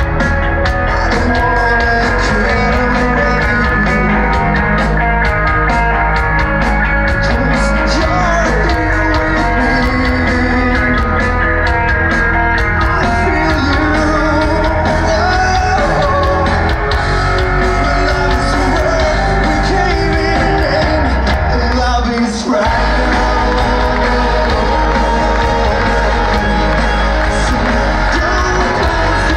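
A rock band playing live through a large outdoor PA, heard from the crowd: electric guitars, drums and keyboards under a lead singer. The music drops out briefly about three-quarters of the way through, then comes back in.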